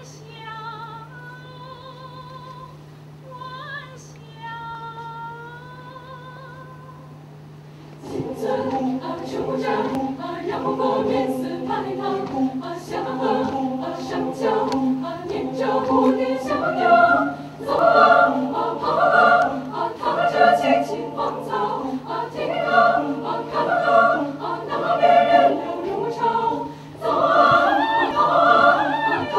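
Large mixed choir singing a cappella: a few soft, held voices for the first eight seconds or so, then the full choir comes in much louder at about eight seconds in with a rhythmic, pulsing passage.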